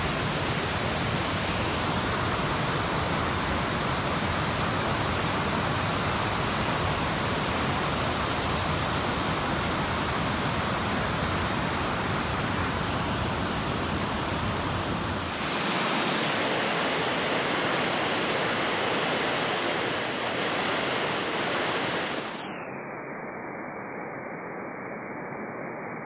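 Steady rushing of a waterfall. About two-thirds of the way through the deep rumble drops away, and near the end the sound turns duller and quieter.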